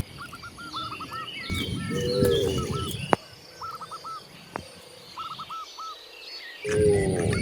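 Cows mooing: a low call in the first half, and another starting near the end. Between them, small birds chirp in quick repeated groups of short falling notes. A single sharp click comes about three seconds in.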